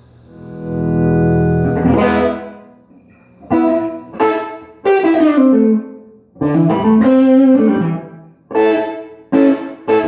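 Gibson Les Paul with Classic 57 humbuckers through a Fender Pro Junior III tube amp, played through an EarthQuaker Devices Ghost Echo reverb pedal that is switched on with its controls at zero. A chord swells in and fades, then short chords and phrases with sliding notes follow, each stopping cleanly before the next.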